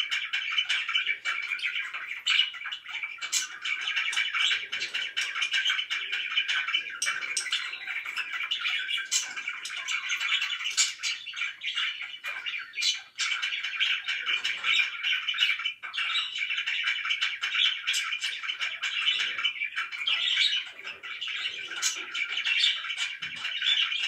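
Budgerigars chattering without a break, a dense warble of overlapping high chirps with scattered sharp squawks.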